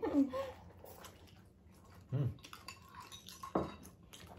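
Tableware being handled during a meal: dishes and cutlery clinking, with a sharp click about three and a half seconds in. A short low voice-like sound comes about two seconds in.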